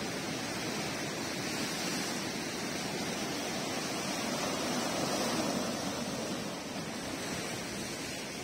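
Ocean surf breaking and washing over a rocky reef shore: a steady rush of water that swells a little about halfway through, then eases.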